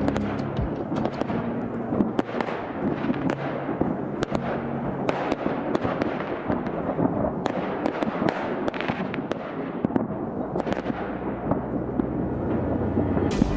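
Fireworks display: a dense barrage of bangs and crackling, with many shells bursting in quick succession.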